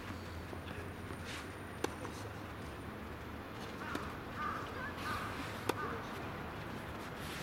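Tennis ball being struck by rackets during a rally, heard as a few sharp pops a few seconds apart, the loudest about two thirds of the way through.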